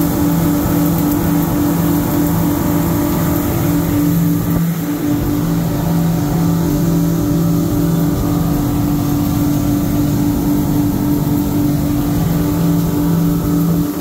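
Motor cruiser's inboard engines running steadily underway, a loud low drone with a slow regular throb, heard from the enclosed helm.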